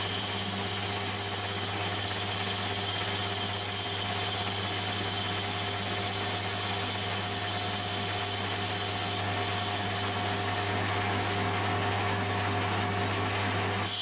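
Metal lathe turning the outside diameter of a cast iron piston blank: a steady machine hum with a continuous cutting hiss from the tool. A few steady tones sit over it, unchanged throughout.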